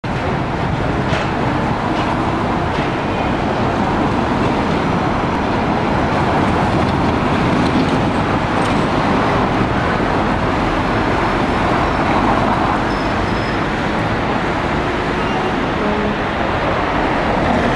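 Street traffic: cars driving past in a steady wash of road noise, with a few light clicks in the first few seconds.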